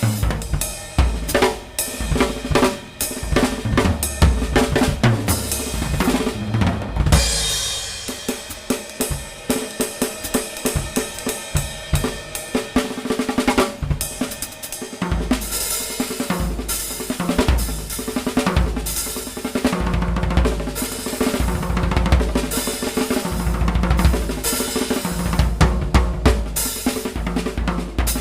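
Music led by a drum kit, with bass drum, snare and cymbals in a busy beat. The deep kick drum thins out for several seconds in the middle while the cymbals carry on, then comes back.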